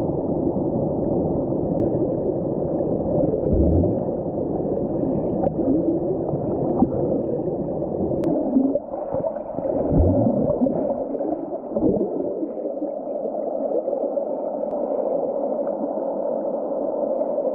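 Stream water rushing, heard muffled with almost no high end, with a few dull low thumps about 4, 10 and 12 seconds in.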